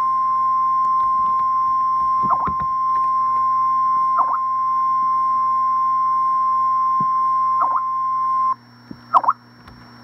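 Emergency Alert System attention signal: one steady high tone near 1 kHz, the single-tone alarm that NOAA Weather Radio sounds ahead of a warning. It cuts off suddenly about eight and a half seconds in. A few short chirps sound over it.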